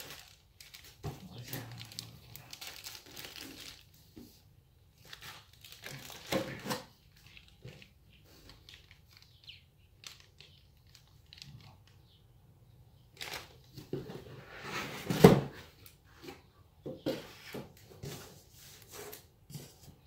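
Cardboard box flaps, a pulp-cardboard tray and plastic parts bags rustling and crinkling in irregular bursts as the box is unpacked by hand, with a sharp knock about fifteen seconds in, the loudest sound.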